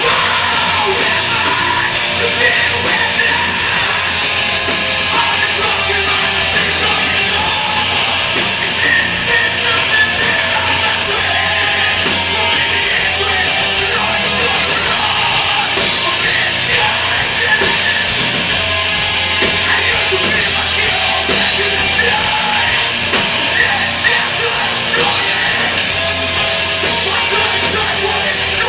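Rock band playing loud, heavy punk-style rock with distorted guitars, drums and yelled vocals, steady and unbroken.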